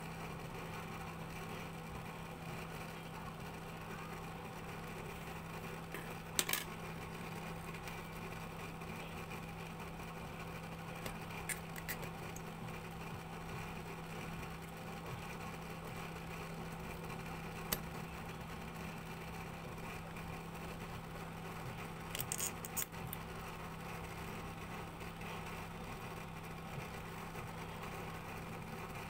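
A steady low hum with a few brief, scattered clicks and light clinks.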